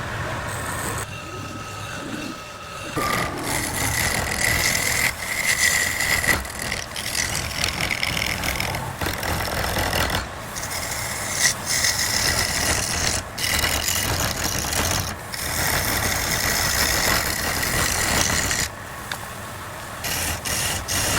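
Wood lathe running while a turning tool cuts the spinning wood, a steady scraping noise with a faint whistle, dropping away briefly several times as the tool comes off the work.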